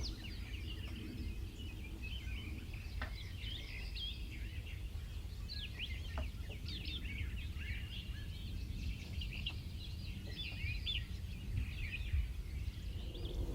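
Songbirds chirping and whistling in the dawn chorus: many short overlapping calls throughout, over a steady low rumble.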